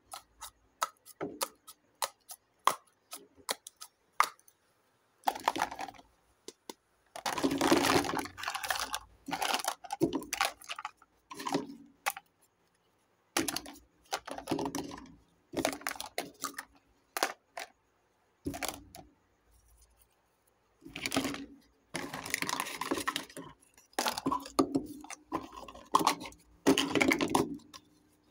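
Small plastic toy kitchenware clacking and rattling as hands rummage through a heap of pieces and pick them up, in separate bursts of clatter and single clicks with short silent gaps. The longest, busiest rattling comes about a quarter of the way in and again in the last third.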